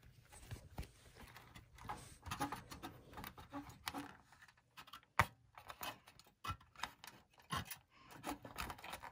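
Faint scattered clicks, knocks and rubbing from hands handling the parts of a dismantled DVD player: its metal chassis, circuit board and cords. The sharpest click comes about five seconds in.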